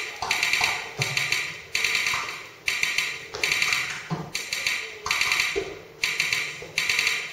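Percussive samples played back by a ChucK sequencer that reads the on-screen animation: a rhythmic pattern of clusters of rapid clicks, each cluster starting sharply and fading, a new one about every eight-tenths of a second.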